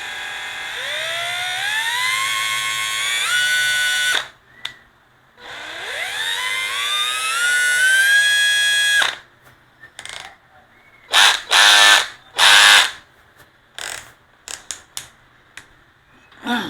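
A Panasonic EZ7940 14.4 V cordless hammer drill-driver run up twice on the trigger: the motor whine climbs in pitch in steps to full speed, then stops abruptly. Near the end come three short, louder, rougher bursts with a few clicks between them.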